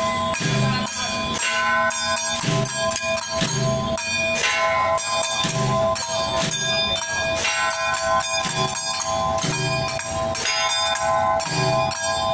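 Taiwanese temple-procession percussion music accompanying a jiajiang troupe's dance: a steady, repeating beat of drum thuds and metallic clashes over sustained ringing metal tones.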